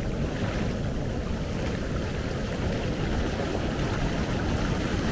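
Heavy storm surf: a wave's foaming swash rushes up the sand and washes around a microphone held at water level, a steady rushing hiss of moving water.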